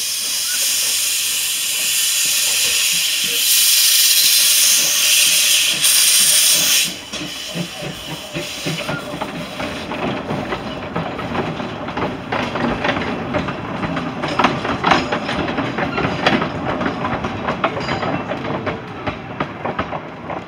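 Narrow-gauge steam locomotive pulling away with a loud hiss of steam from its cylinders, which stops abruptly about seven seconds in. Then come the irregular clicking and rattling of the coaches' wheels on the track as the train rolls past.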